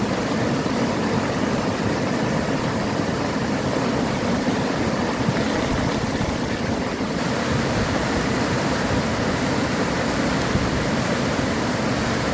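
Floodwater pouring over a low causeway and churning into white water, a steady rushing noise that does not change.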